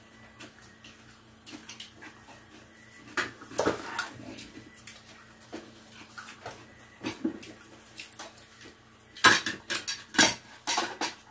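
Metal spoons and forks clinking and scraping against ceramic bowls and plates, with scattered light taps, then a run of louder clinks about nine seconds in.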